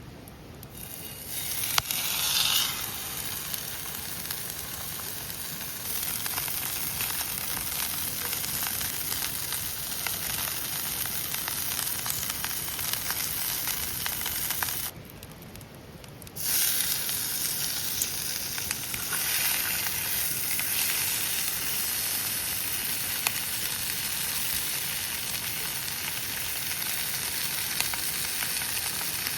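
Food sizzling as it fries in a hot pan, a steady hiss that starts about a second in and breaks off for a moment around halfway before carrying on.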